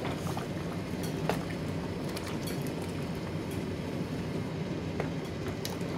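Thick curry simmering in an aluminium pressure-cooker pot on a gas hob while a wooden spoon stirs it: a steady low rumble with a few scattered soft ticks and pops.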